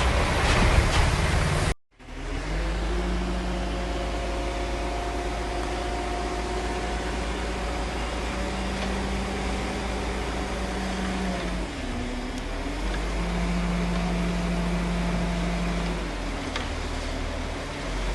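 Heavy diesel construction machinery running steadily, with a brief drop in engine pitch about twelve seconds in. A louder, noisier stretch in the first two seconds stops abruptly.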